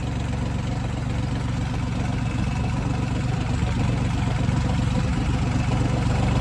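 New Holland 3630 tractor's diesel engine running steadily under load while it pulls a plank leveller through a flooded field, heard from the driver's seat.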